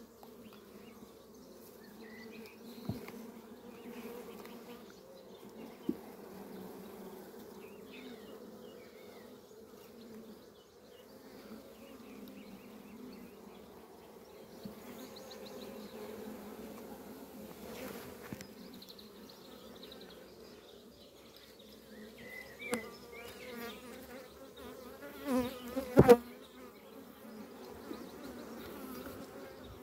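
Honeybees buzzing in a steady, even hum over an opened hive. Scattered clicks, and a couple of sharp knocks near the end, come from the hive frames and a metal frame grip being handled.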